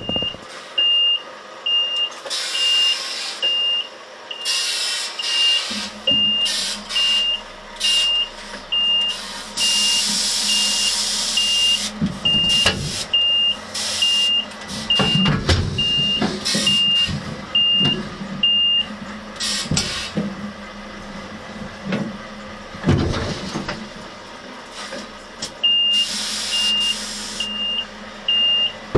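A truck's reversing alarm beeping steadily, about three beeps every two seconds, stopping after about nineteen seconds and starting again near the end, over a diesel engine hum and several loud bursts of hiss.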